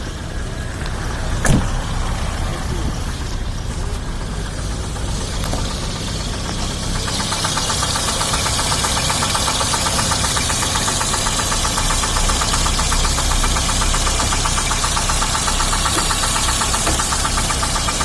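Daewoo Sens engine idling on gas with a fast, even metallic ticking knock, which the owner guesses is the crankshaft or a valve. It grows louder and clearer about seven seconds in, and there is one sharp knock about a second and a half in.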